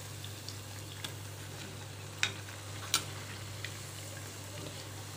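Potato bajji (gram-flour-battered potato slices) deep-frying in hot oil as they puff up: a soft, steady sizzle, with a few sharp clicks about one, two and three seconds in.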